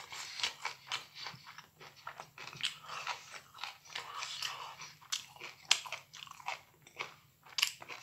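A person chewing a mouthful of microwaved broccoli: irregular crunches and clicks of biting and chewing.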